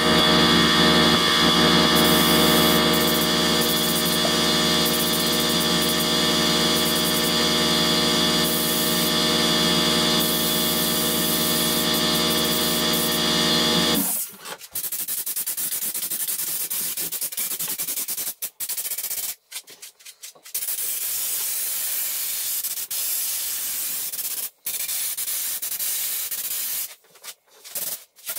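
Air compressor motor running with a steady hum and hiss, then shutting off suddenly about halfway through. After that, a Raptor bed liner spray gun's compressed air hisses in spurts, stopping and starting as the trigger is pulled and released.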